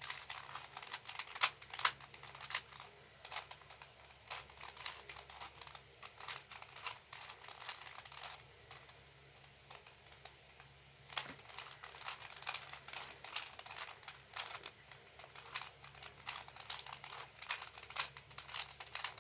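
A V-Cube 2 (2x2 puzzle cube) being turned by hand during a solve: rapid, irregular plastic clicks and clacks as the layers snap round, with a short lull about halfway through.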